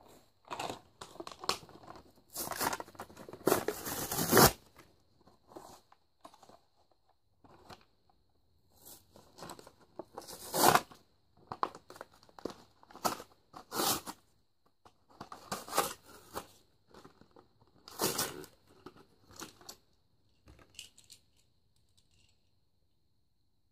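Toy packaging being torn open by hand: cardboard and plastic tearing and crinkling in irregular bursts, with sharp rips about four and a half seconds in, near the middle and about eighteen seconds in, stopping a little before the end.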